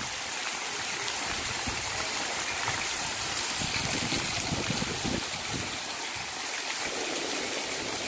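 Heavy rain falling steadily on a wet street, an even hiss.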